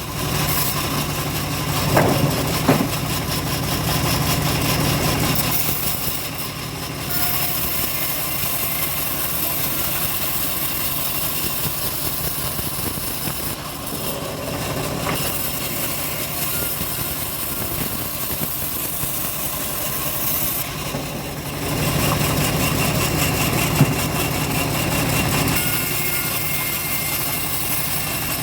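Engine-driven homemade bandsaw sawmill running, its sound getting louder and quieter several times. There are short sharp knocks about two seconds in and again near the end.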